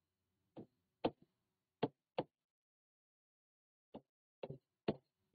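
Pen tapping and stroking against a writing board as letters are written: a series of short, sharp knocks. Several come in the first two seconds, then a pause of nearly two seconds, then a few more near the end.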